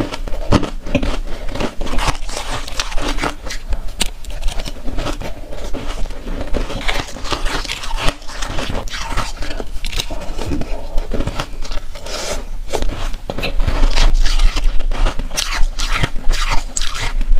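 Chewing and biting of soft, powdery freezer-frost ice: a dense run of crisp crunches and crackles, with a metal spoon scraping through the ice in a steel bowl.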